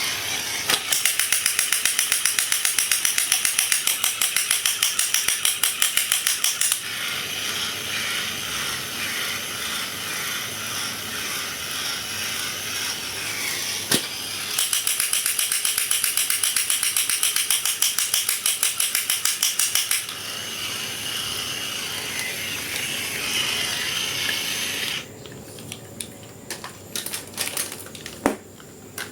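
Rapid mechanical clicking from a small mechanism, in two long runs with a steadier whirring noise between them; a single sharp click comes midway. Near the end it turns much quieter, with only scattered clicks and taps.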